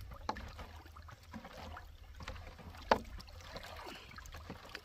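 Water sloshing and swirling as fertilizer is stirred into a barrel of water with a wooden stick, with one sharp knock about three seconds in.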